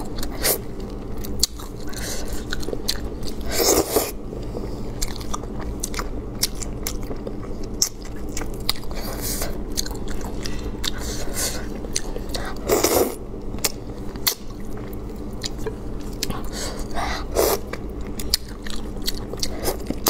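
Close-miked eating of braised anglerfish: wet chewing and lip-smacking with many small clicks as pieces are bitten and pulled from the bones, and three louder, longer wet sounds at about 4, 13 and 17 seconds.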